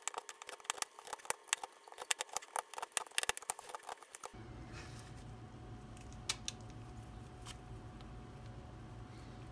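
Large knife chopping Brazil nuts on a bamboo cutting board: quick sharp knocks of the blade on the wood and crunching nut pieces for about four seconds. Then the chopping stops abruptly, leaving a steady low hum with a few faint clicks.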